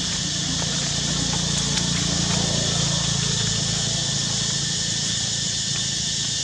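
Steady outdoor background: an even high hiss with a low droning hum beneath it, the hum swelling slightly a couple of seconds in.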